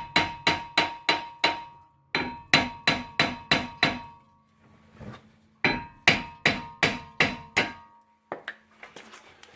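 Hammer blows on a cast-iron brake rotor, in three quick runs of about four strikes a second with short pauses between, each blow ringing the metal. Rust has seized the rotor to the hub, and it is being knocked loose.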